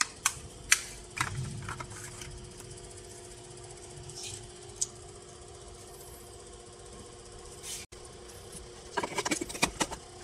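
Light clicks and plastic rattles of an LED bulb being handled and fitted into a tail-light bulb socket: a few sharp clicks near the start, then a quick cluster of clicks and rattles about nine seconds in. A faint steady hum runs underneath.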